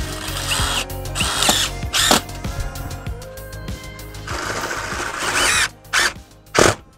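Cordless drill driving screws through a galvanized steel bracket into a metal roof, in several short runs, the longest about a second long, over background music.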